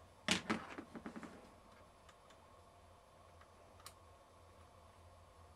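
A quick clatter of clicks and knocks lasting about a second, then a single click near four seconds in: tools and small parts being handled while the compressor is put back together.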